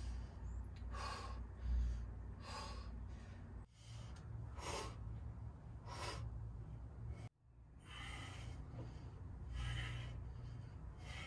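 A man's forceful, breathy exhalations of effort during weighted dips and hanging raises, about six of them spaced roughly a second and a half apart. The sound drops out abruptly twice.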